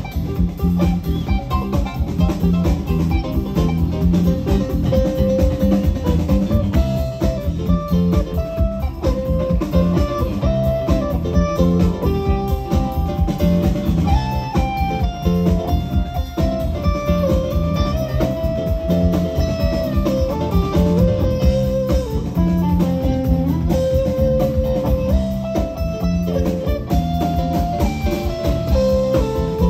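Live band playing an instrumental passage: a guitar melody of held notes over a steady beat of bass and drums.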